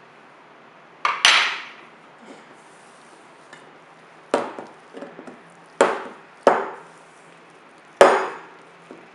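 A spatula knocking against a stainless steel mixing bowl as a crumbly mixture is stirred. There are five or six sharp knocks at irregular intervals, each with a short ringing tail.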